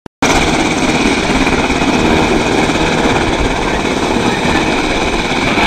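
Sikorsky UH-60 Black Hawk helicopter running on the ground with its rotors turning. Its rapid rotor-blade chop is loud and steady, with a steady high whine from its turboshaft engines over it.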